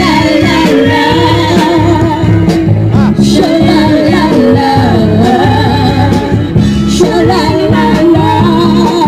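Pop band music: a wavering lead melody over a steady bass line and beat.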